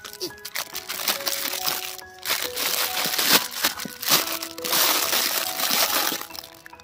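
Thin clear plastic bag crinkling and rustling as a small die-cast toy tractor is pushed into it, loudest from about two seconds in until near the end, over background music with held notes.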